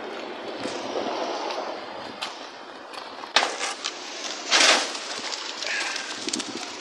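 Wet concrete poured from a plastic bucket into a form, coming out in a loud rush about four and a half seconds in, with a sharp knock a second before.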